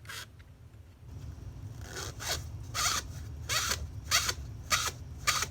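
Foam holder on a tumbler cup turner, rubbing and squeaking in a regular rhythm about every half second. Under it a low steady hum starts about a second in.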